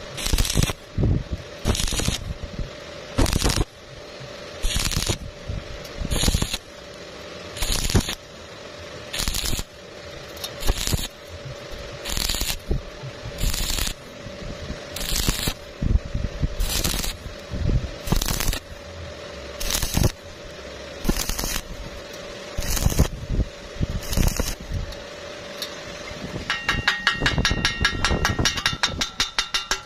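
Stick (shielded metal arc) welding a thin square tube to galvanized square tube with a stitch technique: the arc crackles in short bursts, under a second each, about every second and a half, over a faint steady hum. Near the end the welding stops and a fast run of ringing metallic strokes follows as the slag is cleaned off the weld.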